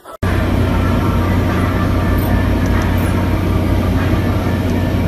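Plastic hamster wheel spinning fast under a running hamster: a loud, steady whirring rumble with a low hum, starting suddenly a moment in.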